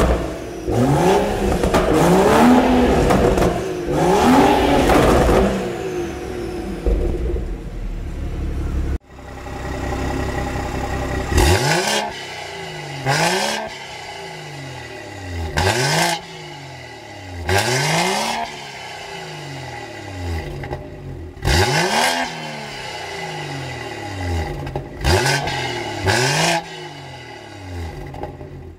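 BMW M140i's turbocharged 3.0-litre straight-six revved in repeated quick blips while stationary, its pitch rising and falling with each one. At first it is heard through a Scorpion downpipe with the stock exhaust; after a cut about nine seconds in, through a full Scorpion non-resonated turbo-back system with its exhaust valve closed, the blips spaced about two seconds apart.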